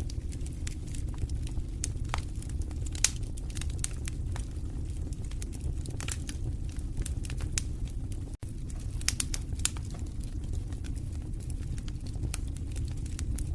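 Wood fire burning in a fireplace, crackling with many sharp pops and snaps over a low steady rumble of the flames; one pop about three seconds in is louder than the rest. The sound drops out for a split second a little past the middle.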